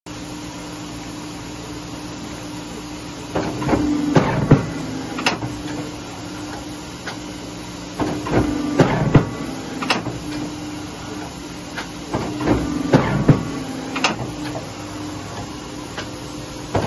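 1987 Polar 115 EMC-Monitor guillotine paper cutter running with a steady motor hum. Three times, about every four and a half seconds, it goes through a cutting cycle heard as a quick run of heavy clunks and knocks as the clamp and knife come down through the paper stack.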